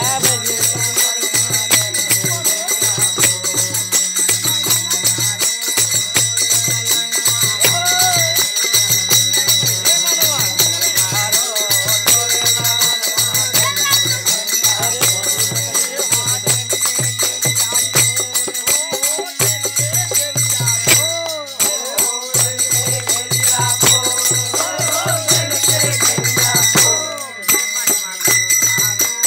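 Group of men singing a Bhojpuri Holi folk song to harmonium and dholak drum, with jingling hand percussion keeping the beat.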